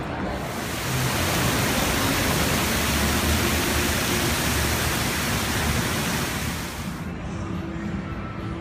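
Water falling down a wall fountain: a steady rushing hiss that comes in just after the start and cuts off abruptly about seven seconds in.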